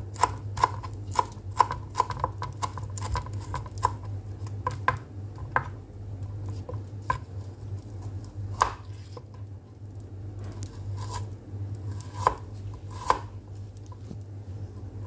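Kitchen knife chopping on a cutting board. For about four seconds it slices kencur leaves in quick, even strokes, about two to three a second. After that come slower, scattered knocks of the blade on the board, all over a steady low hum.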